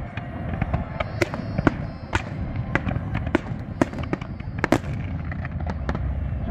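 Aerial fireworks going off: a string of sharp, irregular bangs from shells launching and bursting, about two a second, over a low rumble.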